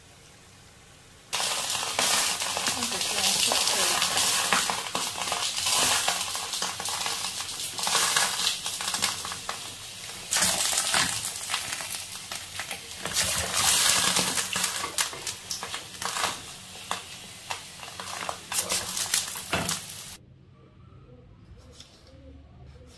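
Chicken feet frying in hot oil in a wok: loud, dense crackling and spattering that starts about a second in and cuts off abruptly near the end.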